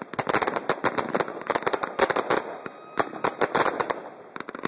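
Aerial fireworks bursting overhead: a dense, rapid run of sharp cracks and pops, thinning briefly about three seconds in.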